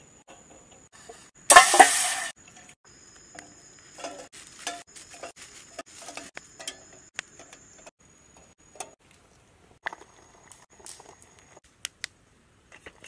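Quail eggs being set by hand into water in a small steel pot, giving scattered light clinks and knocks against the pot. Near the start there is one loud rushing hiss lasting under a second.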